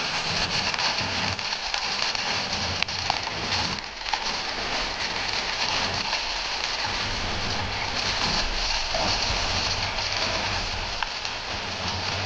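Aagaya Gangai waterfall: a steady rush of falling water, close to the plunge pool.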